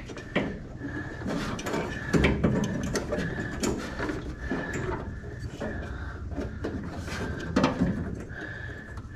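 Heater box assembly knocking, scraping and rattling against the dash and firewall of a 1970 Dodge Dart as it is worked into place, with scattered clicks and bumps.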